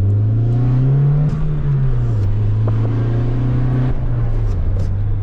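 A car engine revs up briefly, then drops back and runs steadily before settling to a lower speed near the end.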